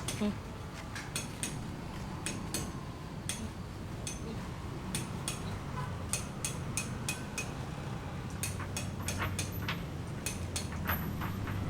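Irregular light clicks and clinks, hard small objects tapping, coming in loose clusters over a low steady hum.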